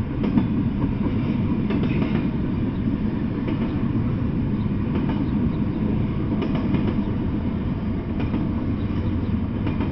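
Double-stack container freight train rolling past: a steady low rumble of steel wheels on rail, with a click from the wheels every second or so.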